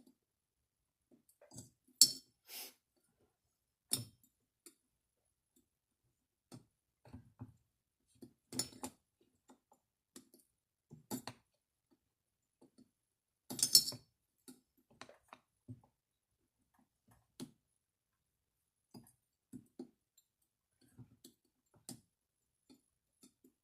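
Scattered clinks and knocks of hand tools and small metal parts being handled while a chainsaw is taken apart, with two sharper clanks, one a couple of seconds in and the loudest just past the middle.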